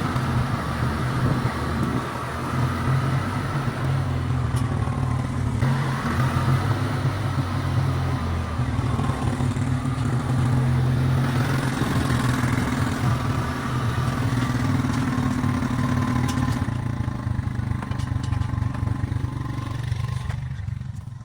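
A vehicle engine running steadily while driving across a pasture. Its sound drops away about a second before the end.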